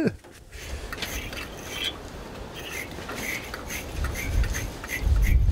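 Irregular light scraping and rubbing from gloved hands working a small metal part, with a low wind rumble on the microphone that grows stronger near the end.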